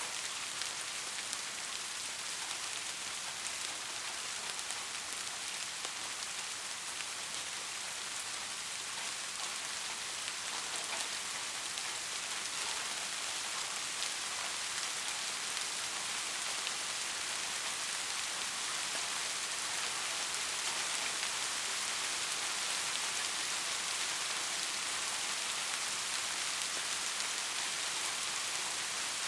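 Heavy rain falling steadily: a dense, even hiss with scattered sharp drop ticks, no thunder.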